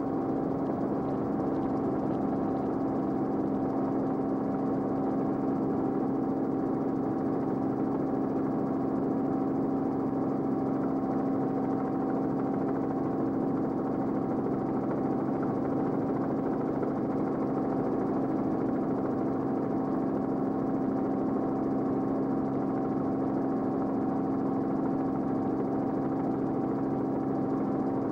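Steady drone of an aircraft's engine, heard from inside the cabin, holding one even pitch throughout.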